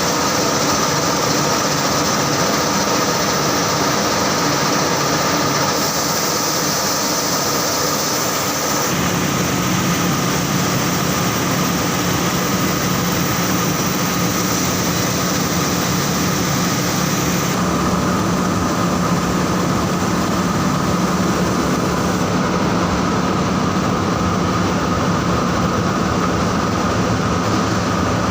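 Saurer JSC 330 textile carding machine running, a loud steady mechanical drone with a constant high whine over it; a lower hum grows stronger about nine seconds in.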